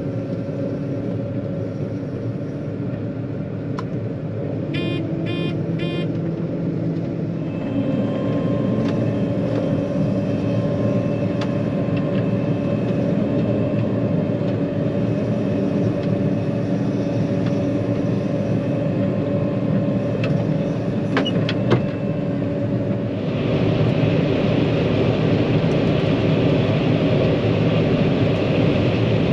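Farm vehicle's engine running steadily while travelling by road, heard from the cab, with three short electronic beeps about five seconds in. The engine gets louder about a third of the way through and again near the end.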